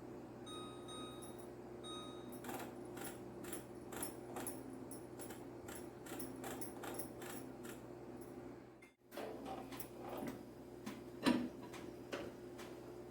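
Microwave oven control beeping twice, short electronic beeps in the first two seconds as the grill is set, followed by a run of light clicks and taps. After a short break about nine seconds in, more clicking with one sharper clatter.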